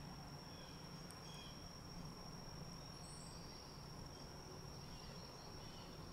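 Quiet woodland ambience: a steady high-pitched tone holds throughout over a low steady hum, with a few faint, short bird chirps scattered through it.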